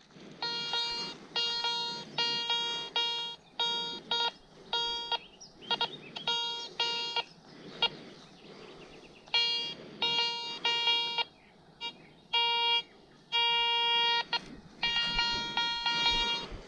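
Garrett ACE metal detector sounding its target tone over and over as the coil is swept back and forth over a spot in the ground: short beeps of one steady pitch in quick groups, with one longer beep of about a second near the end.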